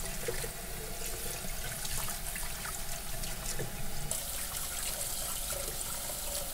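Kitchen tap running into a bowl of water in a stainless-steel sink while hands rinse pieces of fish in the stream, with splashing and small clicks. The splash gets brighter about four seconds in.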